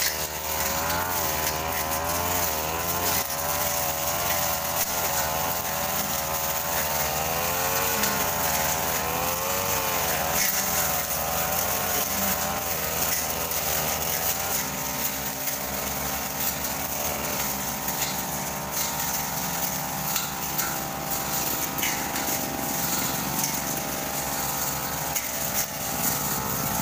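Backpack brush cutter's small engine running at high revs while cutting grass and undergrowth, its pitch rising and falling every second or two as the blade takes and sheds load. The pitch holds steadier from about halfway through.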